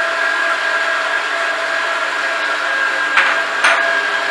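Kenwood stand mixer's motor running steadily at speed 3–4 with a constant whine, its K paddle beating butter and sugar. Two short clicks a little after three seconds in.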